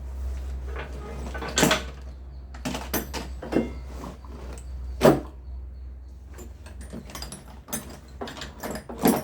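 Irregular knocks and clinks of hand tools and machine parts being handled, with two sharper knocks standing out, over a steady low hum.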